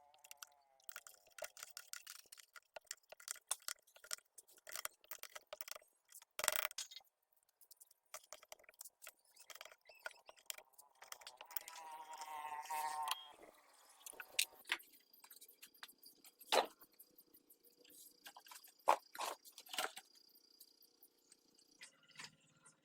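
Scattered sharp clicks and knocks of metal parts and hand tools being handled during engine work on a small diesel tractor engine. A short pitched sound bends in pitch near the middle.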